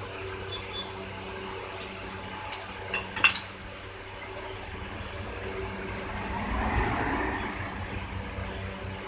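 Steady low electrical-sounding hum with a few sharp clicks about two to three seconds in, and a swell of rushing noise around seven seconds in.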